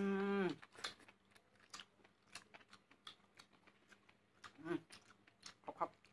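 Close-up eating sounds from people eating noodles and squid: a brief steady hummed voice at the very start, then wet chewing and sharp mouth clicks throughout, with a couple of short vocal squeaks near the end.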